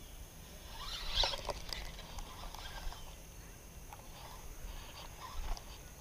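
A spinning rod being cast, with a brief swish about a second in, then faint scattered clicks and rustles from the spinning reel and the hands on the rod.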